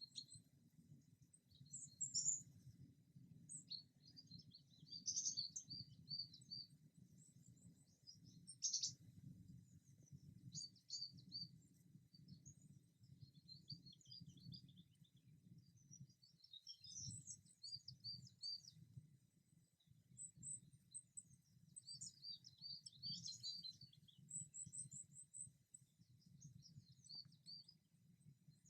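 Small songbirds chirping, with many short, high calls and quick twittering runs overlapping throughout, over a faint low rumble.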